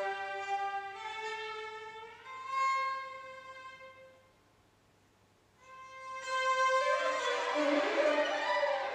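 Violin playing slow, held notes in a contemporary orchestral piece. It breaks off into a short silence about halfway, then resumes with a single held note that thickens into sliding pitches near the end.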